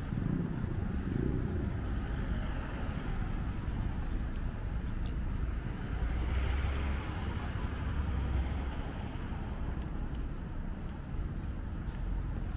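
Outdoor road-traffic rumble, steady and low, swelling briefly about halfway through as a vehicle passes.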